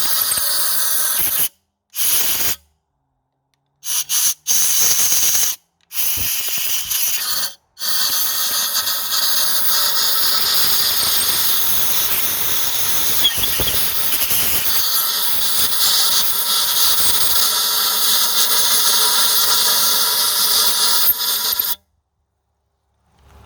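Loud, steady hiss, heard in several stretches with sudden cuts to silence between them.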